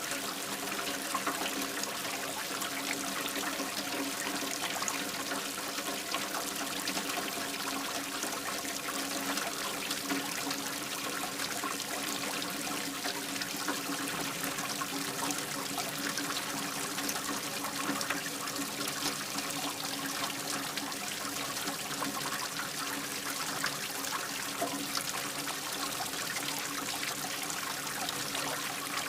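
Rainwater running steadily into a drain, trickling and pouring without a break.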